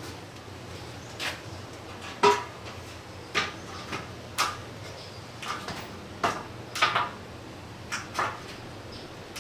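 Light metallic clicks and clacks of a cut aluminum strip being handled and fitted into the screen groove of a sliding-door frame: about a dozen short, sharp knocks at irregular intervals.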